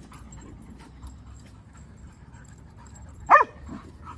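A dog gives one short, sharp bark about three seconds in, over a faint low rumble.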